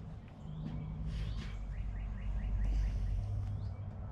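A bird chirping, a quick run of about six short notes about a second and a half in, over a low steady hum.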